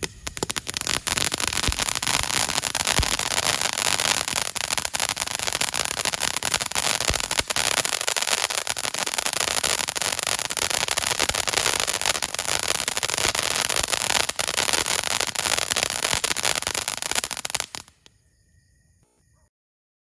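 Phoenix 'Lucky New Year' super jumbo crackling fountain firework burning: a dense, steady hiss of spray packed with rapid crackles. It stops abruptly near the end.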